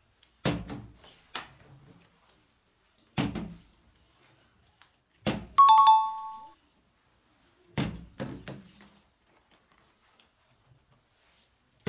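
A partly filled plastic soft-drink bottle being flipped and landing on a table: about six separate thuds spread out. About halfway through, a two-note ding-dong chime rings, the higher note first, then the lower.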